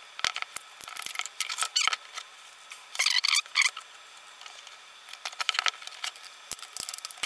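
Crackling, scraping and clicking as a flexible mould is pried and peeled off a cured vacuum-bagged carbon-fibre part, in short irregular bursts.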